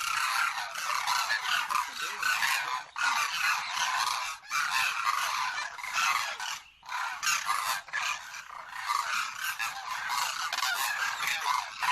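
A flock of captive cranes calling in a dense chorus of overlapping honking calls, broken by a few short pauses.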